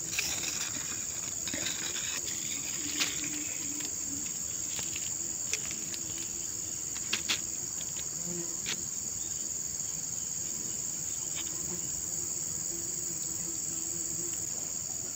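Steady high-pitched drone of insects, with a lower buzzing of bees that comes and goes, and a few light clicks.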